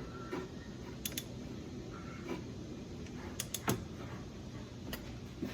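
Scattered light clicks and knocks of hand tools and metal parts being handled during engine work, over a low steady background hum. The sharpest click comes a little over halfway through.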